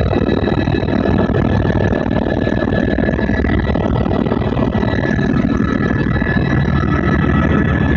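Helicopter in flight heard from inside the cabin: a loud, steady drone of rotor and engine with thin, steady high-pitched whines on top.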